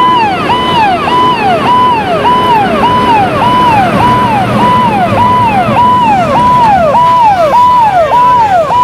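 Fire engine's electronic siren sounding fast and loud, each cycle rising, holding briefly and dropping, about two cycles a second, over the vehicle's engine rumble.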